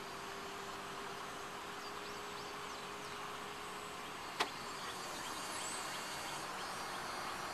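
Chevrolet SSR's power retractable hardtop closing: a steady motor whine that stops about four seconds in, followed at once by a single sharp click as the roof seats.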